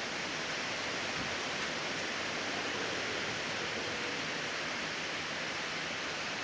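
Strong wind blowing steadily, a dense, even rushing hiss without distinct gusts.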